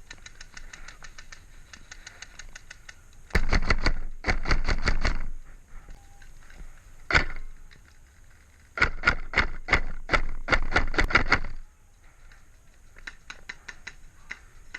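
Airsoft gun firing: a faint rapid clicking of shots at first, then loud strings of close shots, a single shot around seven seconds in, and a longer string of about four shots a second near the end.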